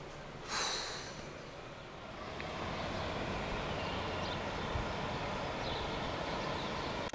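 A short breathy exhale about half a second in. Then, from about two and a half seconds, a steady rush of flowing water, with a few faint high chirps over it.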